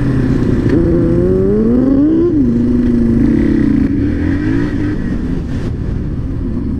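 Motorcycle engine heard from the rider's seat while riding on dirt: the revs climb for about a second and a half, drop sharply, then hold steady, with another short rise a little past the middle.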